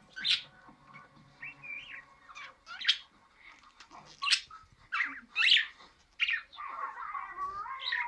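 Budgerigar calling in short, sharp chirps, then breaking into a longer warbling chatter near the end.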